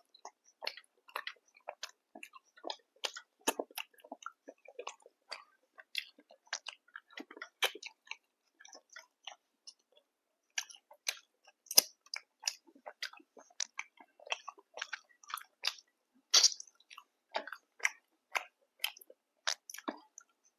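A person chewing and biting food close to the microphone: an irregular run of sharp, crisp mouth clicks and crunches, several a second, with a few louder bites about two-thirds of the way through.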